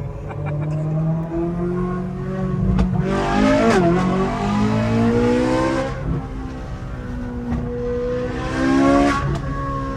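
High-revving sports car engine being driven hard, the pitch climbing through the revs, dropping sharply about four seconds in and climbing again. It is loudest and harshest from about three to six seconds in and again around nine seconds in.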